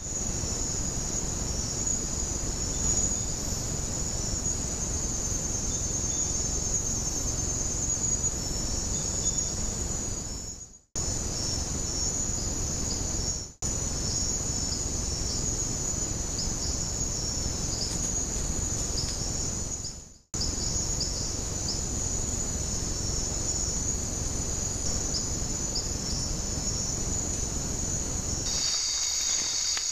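Steady, dense, high-pitched chorus of night insects over a constant low hiss; the sound cuts out briefly three times.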